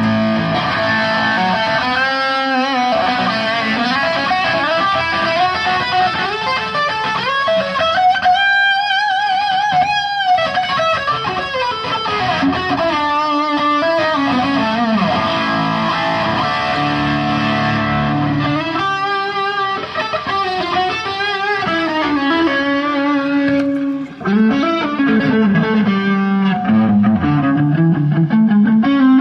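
Electric guitar played through distortion and effects, holding sustained lead notes with wide vibrato, over a band's backing.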